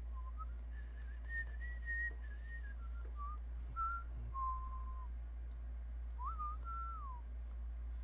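A person whistling a tune: one clear note that wanders up and down in pitch over several seconds, breaks off, and then returns about a second later for a short closing phrase. A steady low hum runs underneath.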